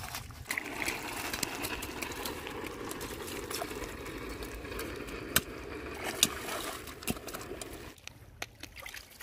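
Shallow stream water trickling and sloshing while hands pat and press wet mud, with two sharp slaps a little past halfway. The trickling drops away about eight seconds in.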